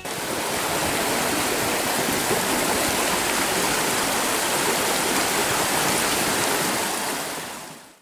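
Mountain stream rushing over rocks in a steady wash of running water, fading out near the end.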